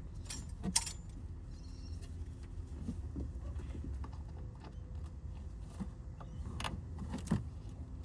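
Scattered light metallic clicks and clinks of hand tools and parts being handled during engine-bay work, the sharpest near the start and twice near the end, over a low steady hum.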